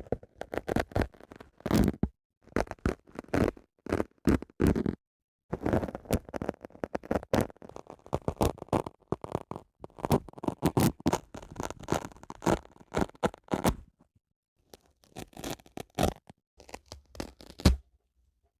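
Dry sponge handled close to the microphone: crackly scratching, rubbing and squeezing sounds in quick bursts, with a few brief pauses.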